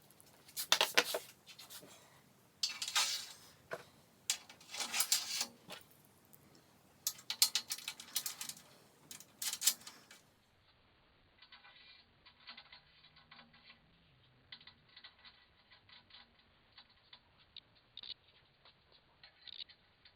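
Small metal fence hardware (T-nuts, bolts and washers) clinking and rattling in five short bursts, as the assemblies are handled and slid into the aluminium fence rails. The second half holds only faint, scattered ticks.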